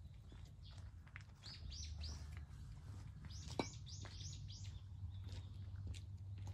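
Small birds chirping in quick series of short, high chirps, with a single sharp click a little past halfway, over a low steady hum.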